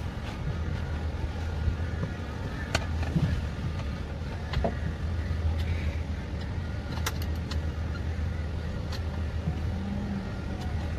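A steady low engine-like hum throughout, with a few sharp clicks and knocks scattered through it.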